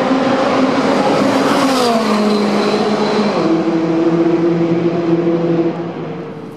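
McLaren 570S's twin-turbo V8 at speed, passing close by at full pace. Its engine note falls in pitch as it goes past, steps down again about a second later, then fades as the car pulls away.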